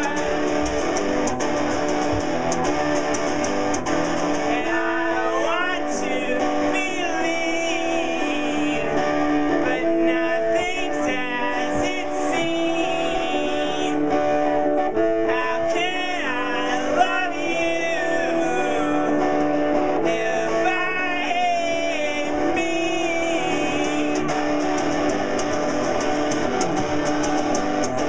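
Live rock song: a man singing over strummed electric guitar.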